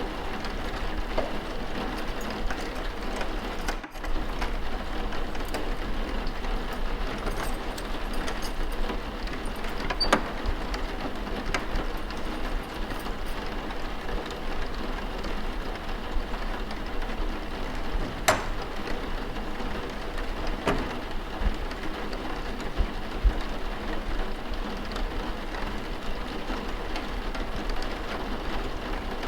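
Steady rain falling, an even hiss with a few faint sharp clicks now and then.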